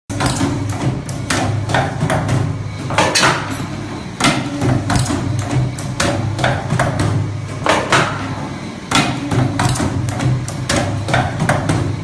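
Strip-forming machine for M-shaped fold clips running, its press and bending tooling striking in quick, repeated metallic clacks over a steady low machine hum.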